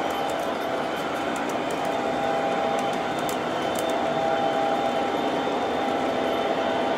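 O gauge model freight train rolling along the track: a steady rumble and clatter of metal wheels on the rails, with a steady whine over it. It grows a little louder about two seconds in as the cars pass close.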